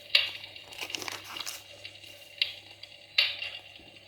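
Pages of a glossy paper catalogue being turned, rustling in several short, crisp bursts.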